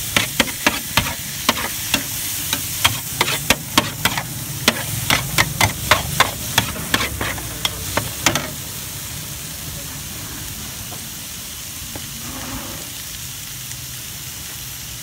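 Food sizzling in a hot pan while a cooking utensil clacks rapidly against the pan in stir-frying, about three strikes a second. The clacking stops about eight seconds in and the steady sizzle carries on.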